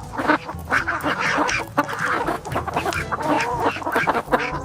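Domestic fowl calling: a rapid, choppy run of short clucking and honking calls.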